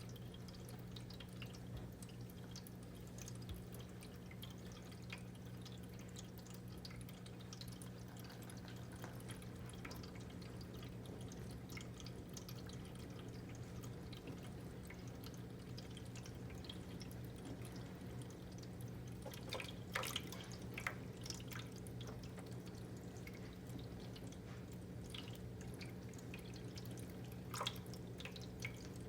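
Cat water fountain running: water dripping and trickling over a low steady hum, with a cluster of sharper splashes about two-thirds of the way through and again near the end.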